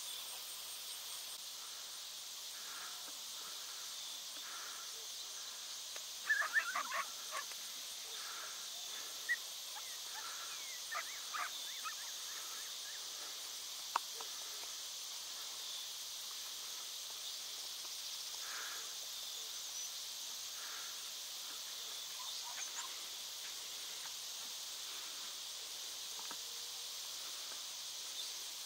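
Steady high-pitched chorus of insects in the field, with a burst of distant yips and barks about six seconds in and fainter scattered yelps later from the decoy dogs and coyotes. A single sharp click comes about halfway through.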